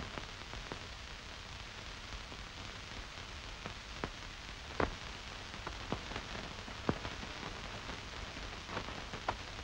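Steady hiss of an early-1930s optical film soundtrack, with scattered irregular clicks and crackles and a louder pop about five seconds in.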